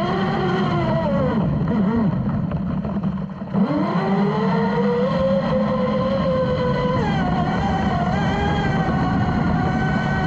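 Brushless electric drive of a radio-controlled speedboat running at speed, heard from a camera on its deck, with spray hissing over the hull. About three and a half seconds in the pitch drops sharply and the sound briefly dips as the throttle eases, then the pitch climbs back and holds. It shifts again about seven seconds in.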